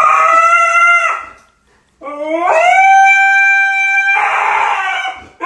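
A dog howling: two long howls. The first slides up in pitch and dies away about a second in. After a short pause the second rises, holds a steady note, then turns rough and breathy before breaking off near the end.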